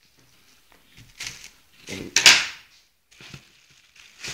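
Cardboard box and packaged fireworks being handled: a few short knocks and rustles, the loudest about two seconds in.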